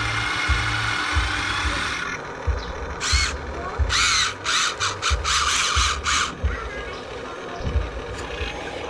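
Small electric gear motors of an RC excavator or dump truck whining, running steadily at first, then in a series of short start-stop bursts.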